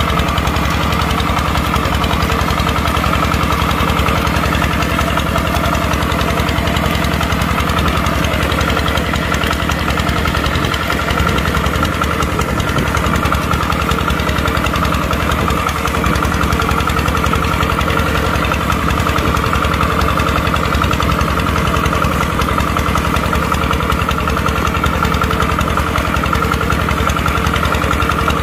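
Kubota tractor's diesel engine running steadily while plowing.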